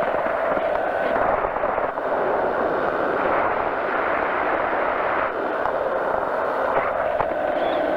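Steady drone of a powered parachute's engine and propeller in flight, heard through the pilot's headset intercom.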